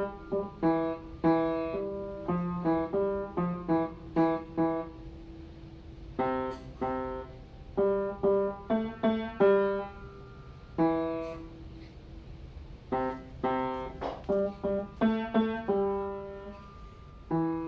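Upright piano played one note at a time by a young child, picking out a short alarm-clock jingle in repeated phrases with brief pauses between them.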